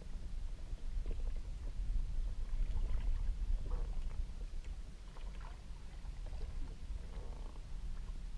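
Water lapping and gurgling against a kayak hull at sea, over a steady low rumble of wind and water on the microphone, with small irregular splashes.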